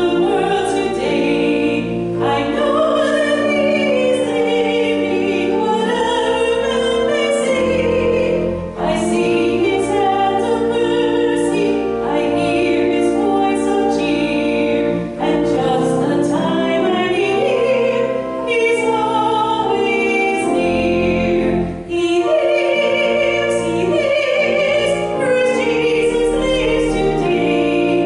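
A woman singing a hymn in a trained, classical style, her held notes wavering with vibrato, over sustained pipe-organ chords.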